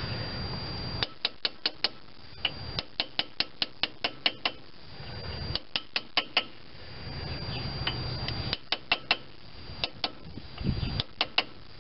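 Hand ratchet wrench clicking in five short runs of rapid clicks, about five a second, as it turns the spindle nut on a front wheel hub.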